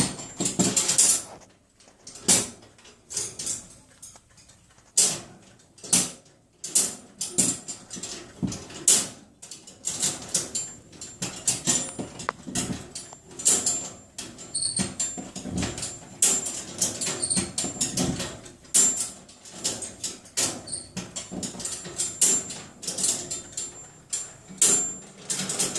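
Metal cage doors being banged and rattled over and over by a pet at play: an irregular string of sharp clanks, a few a second at times, with a high metallic ring on many of them.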